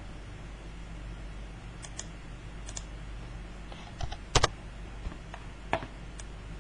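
A few scattered computer keyboard key presses and clicks, the loudest a quick pair about two-thirds of the way through, over a steady low hum.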